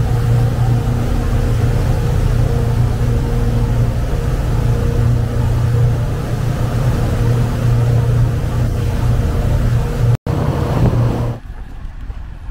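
Twin 7.4-litre MerCruiser V8 inboard engines of a Sea Ray 330 Sundancer running steadily under way at speed, with a steady low hum over rushing wind and water. The sound breaks off and drops to a much quieter background about a second before the end.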